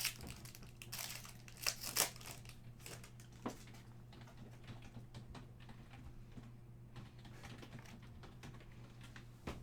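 Basketball trading cards handled and slid against one another: a few sharp clicks and rustles in the first two seconds, then faint, soft ticking, over a low steady hum.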